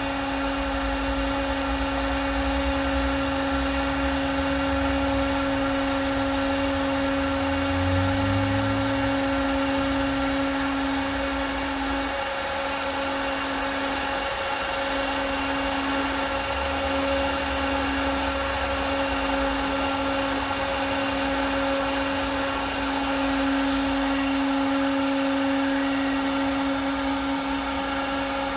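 Festool MFK700EQ trim router, working as a CNC spindle, running at a steady high-pitched whine as its bit cuts into plywood. Under it is a lower rumble that fades and returns as the cut goes on.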